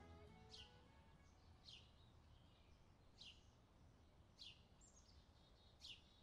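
Faint bird chirps: a short, high call sliding downward, repeated about every second and a half, five times in all. Guitar music fades out in the first second.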